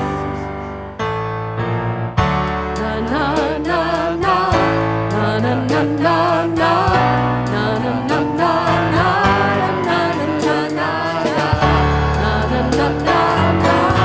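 Worship music: voices singing over keyboard and bass accompaniment, with a brief break about a second in before the singing picks up again.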